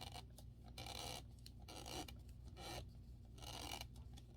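Short scraping rubs, about five in a row, as a drying-rack rod is twisted and pushed into its fitting during assembly.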